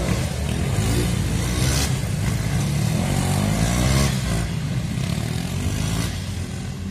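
KTM single-cylinder racing motorcycles running hard on a circuit, the engines revving up and down as the riders accelerate and brake through the corners.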